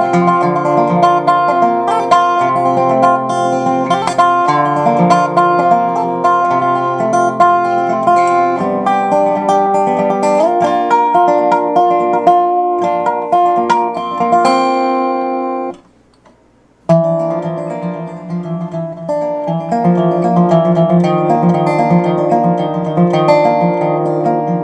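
Resophonic guitar played solo: a picked melody over ringing chords. The playing stops for about a second about two thirds of the way through, then picks up again.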